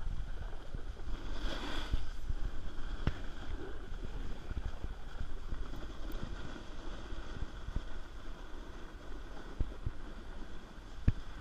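Wind buffeting the microphone and the rushing scrape of a snowboard sliding over groomed snow, with a few sharp knocks.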